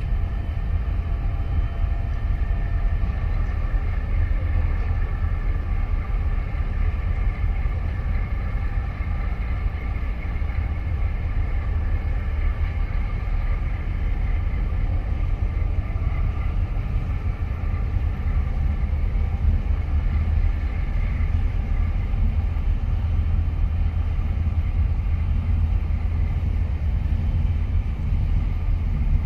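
Steady low rumble with faint steady hums higher up, from a large container ship under way in the harbour and the lit container terminal beyond it.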